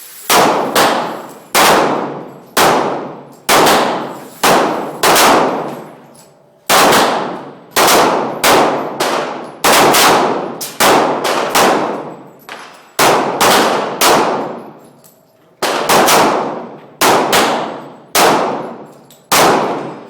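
Pistol shots from a Smith & Wesson SW40VE in .40 S&W, fired in strings of about one to two shots a second, each sharp report ringing off with a long echo. There are short pauses about six seconds in and about twelve seconds in.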